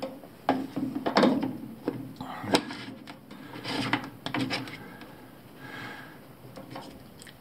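A plastic drain-pump filter cap being fitted back into a front-load washer's pump housing and twisted tight: plastic scraping and clicking, with one sharp click about two and a half seconds in.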